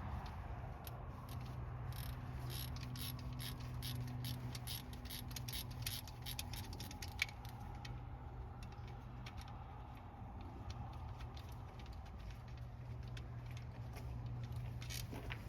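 Irregular clicking and clinking of hand tools and metal parts, dense in the first half and again near the end, over a steady low hum.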